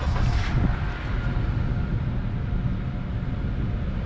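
Steady low rumble of the McLaren supercar running, heard from inside its cabin, with a short rushing noise in the first half second.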